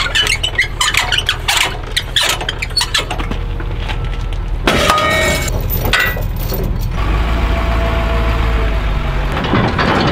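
Pickup truck engine idling with a steady low rumble while a trailer is hitched to it; metal clanks and rattles of the trailer coupler, ball hitch and safety chains fill the first few seconds. Later the engine's rumble grows stronger for a couple of seconds.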